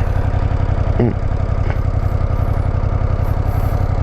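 Motorcycle engine idling steadily, a low, fast, even pulse.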